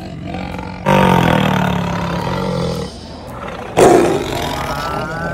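Tiger roaring twice: a long roar starting about a second in and lasting nearly two seconds, then a sudden, louder one near four seconds.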